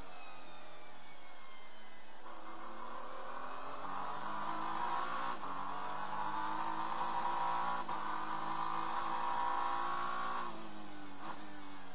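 Racing car engine heard from inside the cockpit, an Acura NSX GT3's twin-turbo V6, running at speed. It grows louder from about two seconds in until near the end, with brief breaks in the note a few times as gears change.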